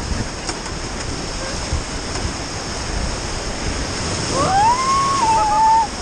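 Whitewater rapids rushing steadily around a raft. About four seconds in, a person lets out a long shout that rises and then holds, louder than the water.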